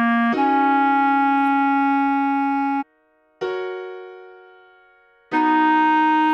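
Clarinet melody: a short low note, then a note held for about two and a half seconds, stopping near the middle. After a brief silence a single piano-like note is struck and fades away over about two seconds. The clarinet comes back in with a held note about five seconds in.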